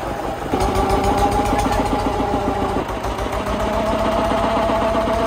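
Wooden boat's engine running steadily with a fast, even throb. It gets louder about half a second in, and its pitch shifts slightly around three seconds in.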